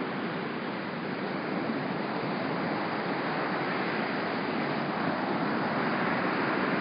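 Ocean surf washing onto the beach as a steady, even rush that swells slightly toward the end.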